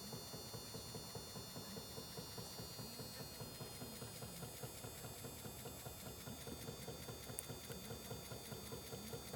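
Small homemade DC motor-generator machine running steadily, with an even rapid ticking several times a second and a faint high whine.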